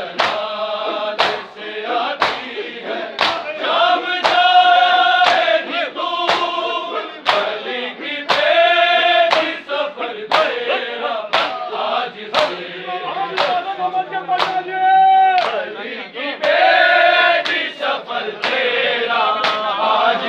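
Men chanting a noha, an Urdu lament, in unison, with the crowd beating their chests in matam together about once a second as the beat.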